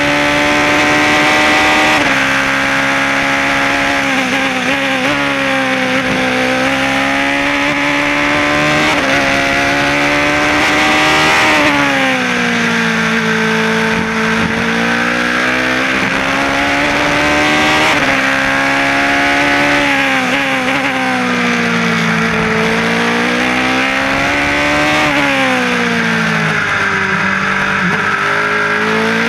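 Onboard sound of a single-seater race car's engine at high revs: its pitch climbs through the gears with short dips at each upshift, falls as the car brakes and downshifts for corners about twelve seconds in and again about twenty-five seconds in, then climbs again.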